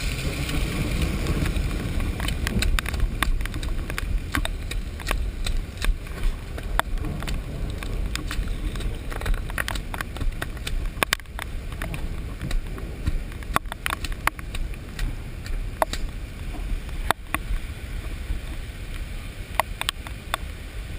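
Handheld GoPro in its waterproof housing, carried on the move: a steady muffled low rumble with frequent sharp taps and knocks on the case.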